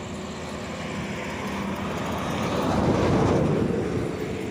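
A vehicle passing on the road, its noise swelling to a peak a little past the middle and then fading.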